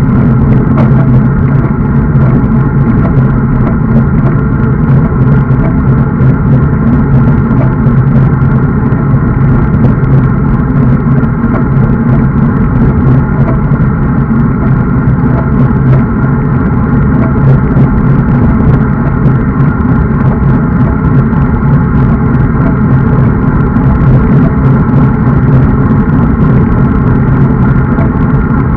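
Loud, steady wind rumble and road noise on a bike-mounted action camera's microphone at riding speed.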